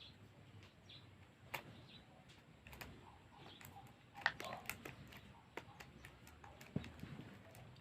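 Faint, scattered clicks and taps of small plastic fidget toys being handled.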